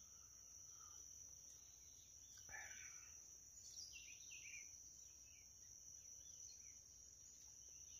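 Faint steady high-pitched insect drone from crickets, with a few soft bird chirps near the middle.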